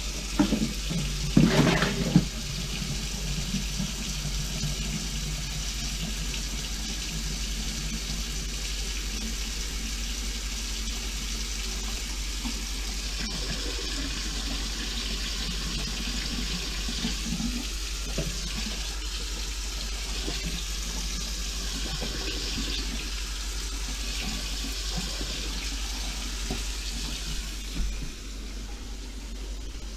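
A bellows plunger pumped a few times over a stainless steel sink drain, then a faucet running steadily into the sink while the plunger seals the other bowl's drain, pushing water down the clogged line. The running water drops away near the end.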